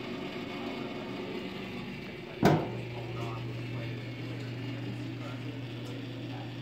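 Electric countertop rotisserie oven: a sharp click about two and a half seconds in, after which a steady low electrical hum starts and holds, over a constant background hum.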